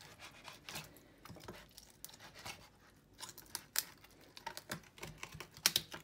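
Kitchen knife cutting through a porgy's neck and backbone to take off the head: a string of small, irregular clicks and crackles, the sharpest in the second half.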